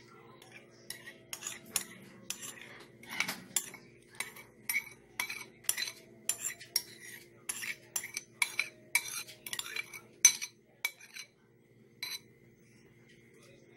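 Metal spoon scraping and knocking against a bowl as thick mayonnaise dressing is spooned out onto shredded cabbage: a quick run of clicks, about two or three a second, that stops about eleven seconds in, with one more a second later.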